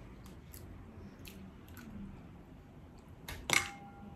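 Eating cooked crab: quiet chewing and small clicks and crunches as crab shell is picked apart by hand. About three and a half seconds in comes one sharp, loud crack followed by a short ringing note.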